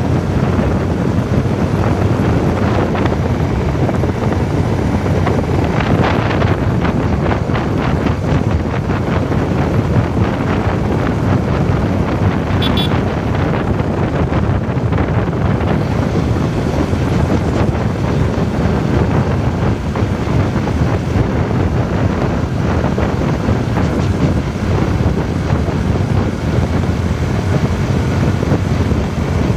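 Wind buffeting the microphone while riding a motorcycle along a road, with engine and tyre noise underneath. The sound is steady and dense, heaviest in the low end.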